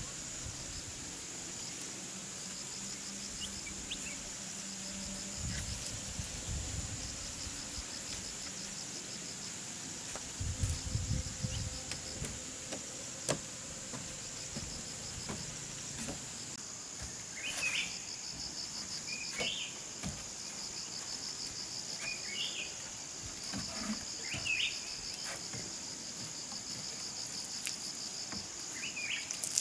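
Steady high-pitched chorus of chirring insects, with a pulsing trill that comes and goes. From about halfway on, short bird chirps sound every second or two. There are two brief low rumbles in the first half.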